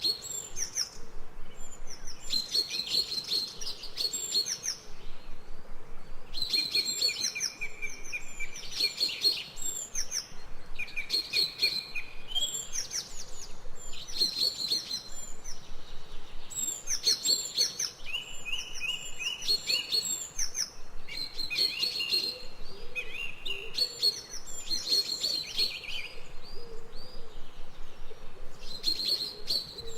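Birds chirping and singing in short, repeated phrases of high notes, one after another with brief gaps, over a faint steady background.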